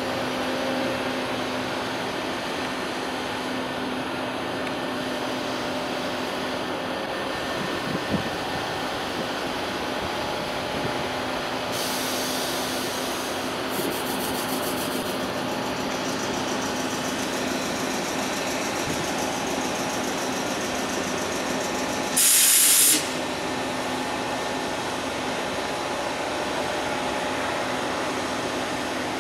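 Steady mechanical hum of machinery at a Panama Canal lock while its miter gates swing open. A few brief hisses come through the hum, then one loud, short hiss about three quarters of the way through.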